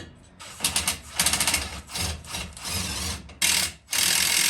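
Power tool running in a series of short bursts, about half a second to a second each, with a fast rattle: fasteners being driven on the car's rear suspension.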